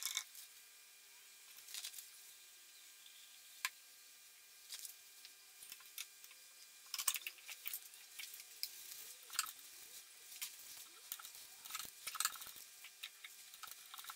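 Faint handling sounds of a candlestick being glued up: glue squeezed from a plastic bottle into the base's socket, then a turned wooden spindle pushed into the base, giving scattered small clicks, taps and brief rubbing of wood on wood.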